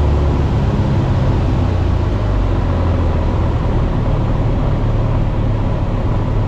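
Cessna 150H's four-cylinder Continental O-200 engine and propeller running steadily under power. The low drone shifts slightly in pitch about two seconds in.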